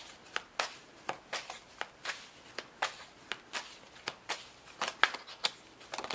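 Tarot deck being shuffled by hand: a quick, uneven run of soft card slaps and clicks, about three or four a second.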